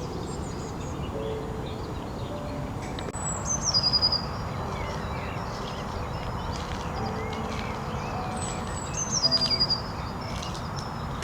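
A small songbird singing twice, each a short phrase of high notes that falls in pitch, over a steady low outdoor background rumble.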